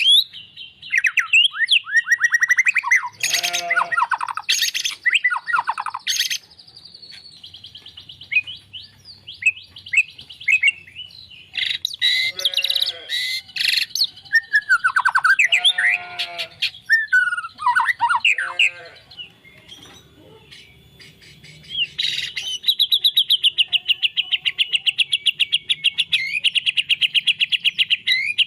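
White-rumped shama (murai batu) singing loudly: varied whistled and scratchy phrases with notes gliding up and down. About two-thirds of the way in, the phrases give way to a long, fast run of rapidly repeated high notes.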